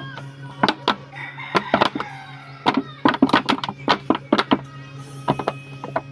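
A kitchen knife stabbing and cutting through a thin clear plastic container, giving a quick irregular series of sharp plastic cracks and crunches. Chickens call in the background.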